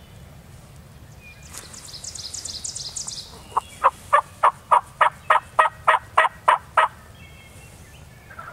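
Turkey yelping: a run of about eleven evenly spaced yelps, about three a second, starting about three and a half seconds in. Just before it, a high, fast trill lasts about a second and a half.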